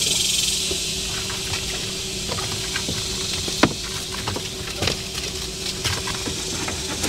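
Thin dash-cam cable being pulled and gathered by hand over carpeted trunk lining, giving light scattered clicks and rustles over a steady background hiss.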